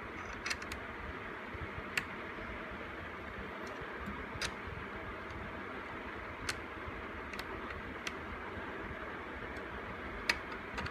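Sparse, sharp metallic clicks and taps, about eight at irregular intervals, as a hinge arm is moved by hand in a steel checking fixture, over a steady background hiss.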